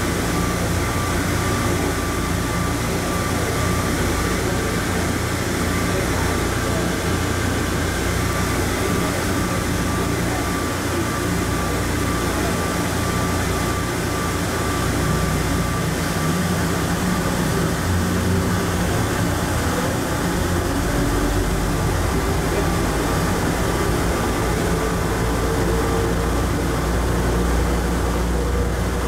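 Rubber-tyred automated people mover running through a tunnel, heard from inside the car: a steady rumble of tyres and running gear with faint steady whines, and a faint rising whine near the end.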